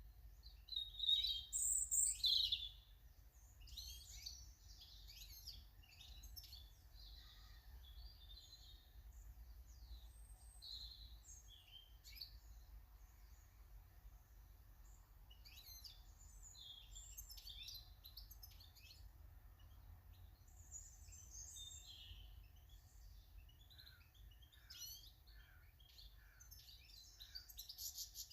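Small garden birds chirping and singing, many short calls and trills throughout, with a louder burst of calls about a second in, over a faint low background rumble.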